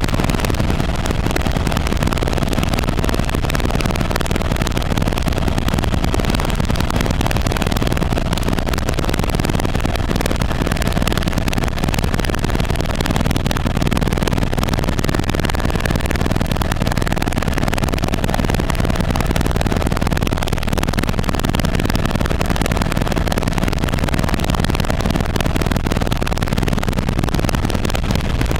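Helicopter in flight, heard from aboard: a loud, steady drone of rotor and engine, heaviest in the low end, with a faint steady whine above it.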